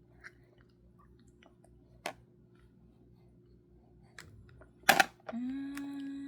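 Faint scattered clicks and taps, then a sharp double knock about five seconds in, followed by a voice holding one long, steady "aaah" note that falls away at the end.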